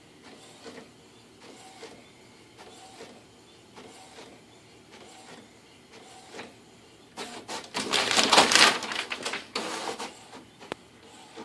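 A printer working, with a faint repeated stroke about every three-quarters of a second as it prints. Then, about seven seconds in, a loud noisy rush lasting about three seconds.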